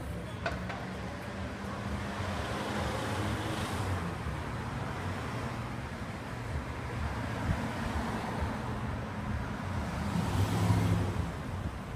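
City street traffic: a steady rumble of cars on the road, with cars passing by about four seconds in and a louder one near the end.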